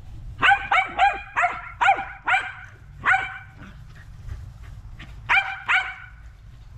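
A dog barking: a quick run of seven sharp, high barks, then two more about two seconds later.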